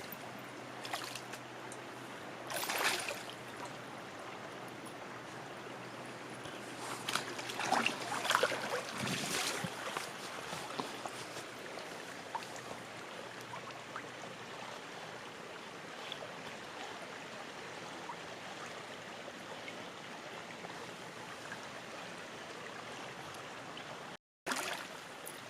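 Steady hiss of running water, like a stream, with a few brief louder noises about three and eight seconds in; it cuts out for a moment near the end.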